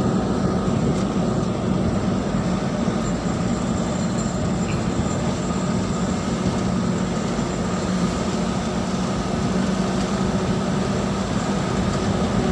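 Steady engine hum and tyre noise of a car driving along a paved road, heard from inside the cabin.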